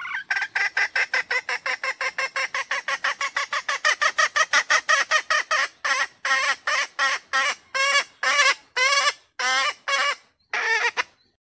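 Female red junglefowl (Gallus gallus) calling: a fast run of short notes, about six a second, that slows after about six seconds into longer notes, two or three a second. This hen's call draws male junglefowl to come near or crow.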